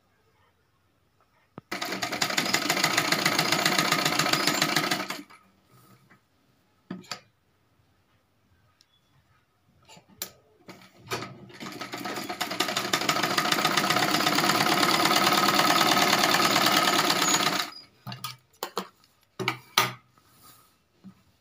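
Domestic sewing machine stitching fabric in two runs: a short one of about three seconds starting about two seconds in, and a longer one of about seven seconds starting about ten seconds in. Short clicks and fabric handling come between and after the runs.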